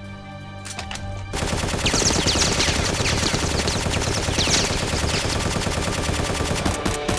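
Rapid automatic gunfire sound effect for a Nerf blaster firing a continuous stream of darts. It starts about a second and a half in over quiet background music, with a few falling whistles mixed into the shots.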